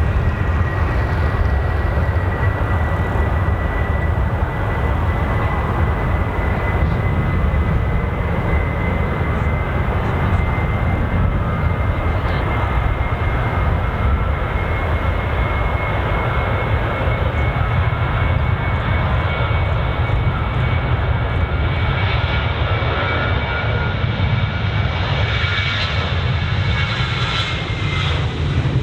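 Boeing 737-800's CFM56-7B turbofan engines at takeoff power: a loud, steady rumble with a high whine over it. The whine climbs slightly and then drops away near the end.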